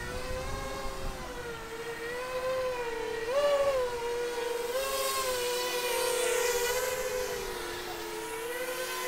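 Small FPV drone's motors and propellers whining steadily. The pitch sags and lifts with the throttle, with a brief louder, higher surge about three and a half seconds in.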